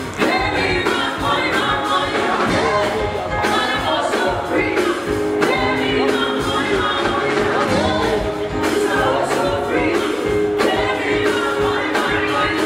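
A woman singing live into a handheld microphone over a live band, with electric guitar and a steady drum beat.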